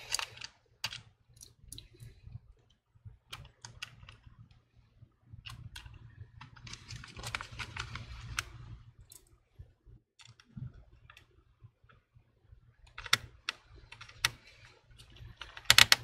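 Scattered light clicks and taps of hands working in an open laptop chassis, pressing the replacement battery and its cables into place, with a quick cluster of louder clicks near the end.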